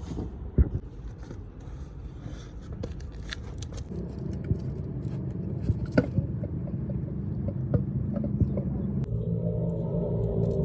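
A machine runs with a steady low rumble, with scattered sharp metallic clicks and scrapes. About nine seconds in it changes to a louder, steadier drone.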